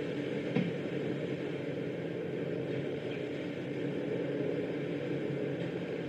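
Steady drone of a patrol boat's engine running at sea, with a brief knock about half a second in.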